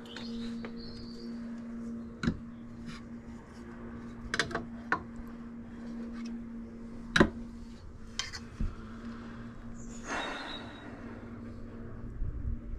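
Sharp clicks and taps of hard plastic bike-rack parts being handled, a few scattered through, the loudest about seven seconds in, then a short rustle of the paper instruction booklet about ten seconds in. A faint steady hum runs underneath.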